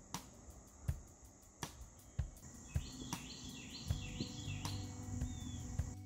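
Outdoor nature ambience: steady insect trilling with a quick run of about five bird chirps in the middle, over soft background music with a regular beat.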